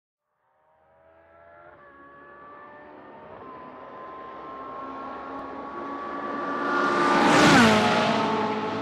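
Mansory Siracusa 458 Spider's 4.5-litre V8 accelerating hard toward the listener, upshifting twice early on, then passing close by about seven and a half seconds in with a sharp drop in pitch as it goes away.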